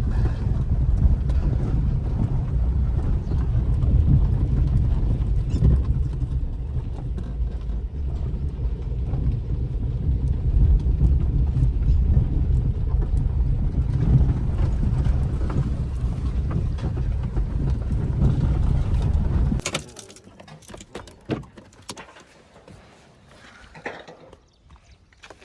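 Heavy diesel machinery engine running steadily under load with a deep, low sound. About twenty seconds in it drops away abruptly, leaving faint scattered knocks and clatters.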